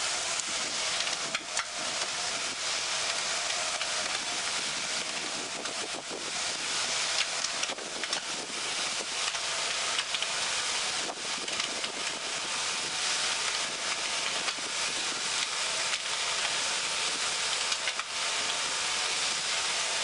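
Pan mixer's rotating paddles churning a damp sand-and-cement mix: a steady, hissy scraping with scattered faint clicks.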